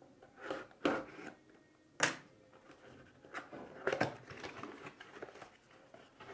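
A craft knife slitting the tape on a cardboard box, then the cardboard flaps being pried open and handled, as a string of short clicks, snaps and scrapes. The sharpest snap comes about two seconds in, with another cluster of scrapes about four seconds in.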